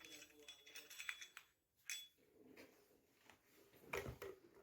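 Faint, scattered clicks and clatter of small hard objects being handled, the clearest about two seconds in and a louder knock about four seconds in, with faint voices in the background.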